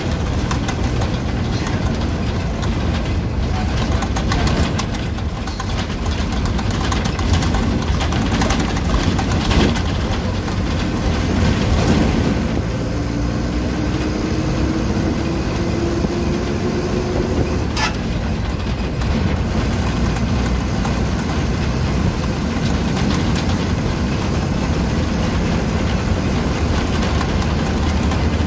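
Engine and road noise of a moving bus heard from inside the passenger cabin, steady throughout, with frequent rattles and knocks from the bus body.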